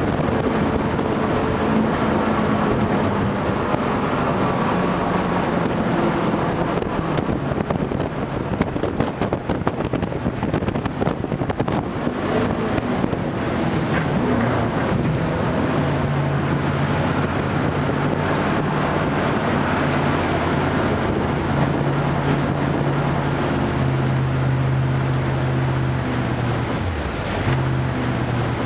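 Jet boat running at speed on a river: a steady engine drone under the rush of water and wind buffeting the microphone. About halfway through the engine settles into a steadier low note, which dips briefly near the end.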